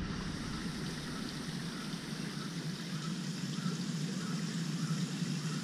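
Shallow forest stream trickling and flowing steadily over rocks, with a few faint high chirps through it.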